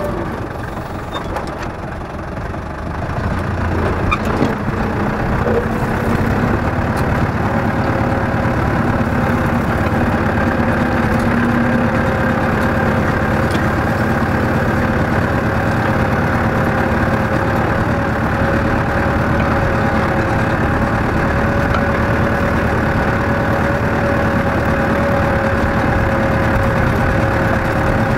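Tractor engine running under load while it pulls a mouldboard plough through the soil; it gets louder about four seconds in, then holds steady.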